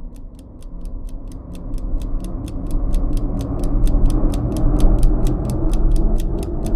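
Cinematic transition sound effect: a steady clock-like ticking, about five ticks a second, over a low rumbling drone that swells louder over the seconds.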